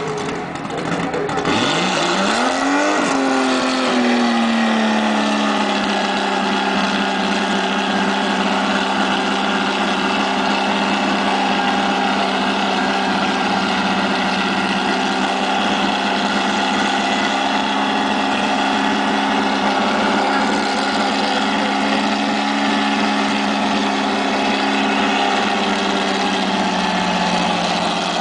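Chevrolet 400 drag car in a burnout: the engine revs up about two seconds in and is then held at high revs while the rear tyres spin and smoke on the asphalt. The engine note eases down slightly near the end.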